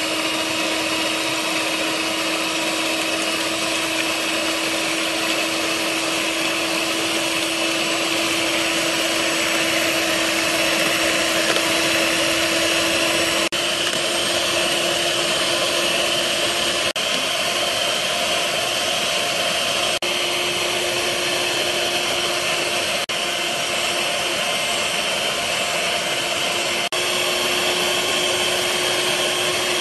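Electric hand mixer (IKON) running steadily, its twin beaters whisking eggs in a stainless steel bowl. The motor's hum steps up slightly in pitch about halfway through.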